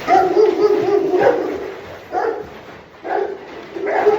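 Anatolian Shepherd dogs barking and whining excitedly: a long call, then shorter ones about once a second.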